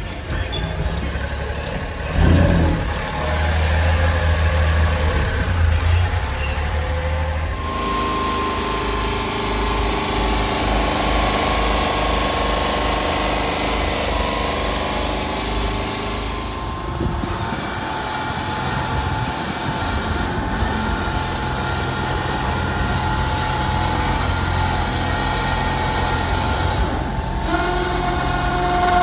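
Honda Acty truck's small three-cylinder engine idling steadily, with a brief louder burst about two seconds in. Near the end a steady higher whine from the truck's electric bed crane comes in.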